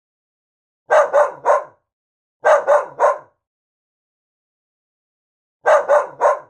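Dog barking in quick triple barks, three sets with pauses between them.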